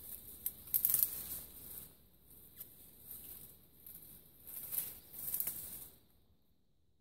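Rustling and crackling of twigs and dry leaves as a long thin branch is pulled and worked through undergrowth, loudest about a second in and again near five seconds, stopping about six seconds in.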